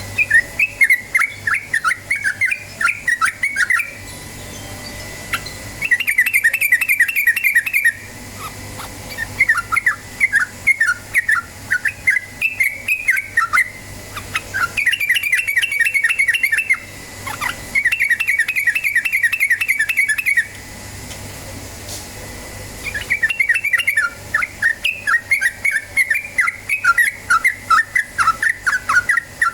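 Yellow-vented bulbul (trucuk) singing in its fast chattering 'ropel' style: bouts of rapid bubbly notes a few seconds long, broken by short pauses.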